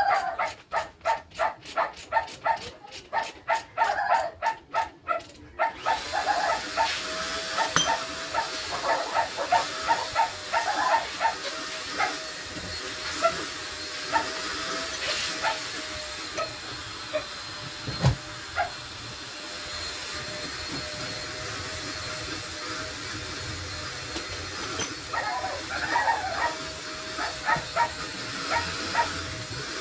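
A rapid pulsing, about five beats a second, stops about six seconds in and gives way to a steady hiss, with short higher calls or squeaks over it.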